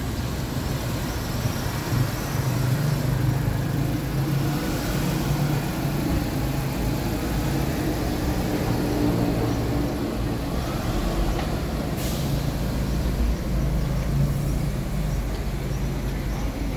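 Steady city traffic: car and bus engines running and tyres on the road, with a minivan driving slowly past close by. A single sharp click sounds late on.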